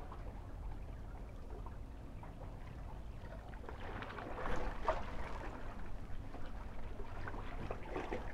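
Small sea waves lapping and washing against shoreline rocks over a low steady rumble, swelling louder about halfway through.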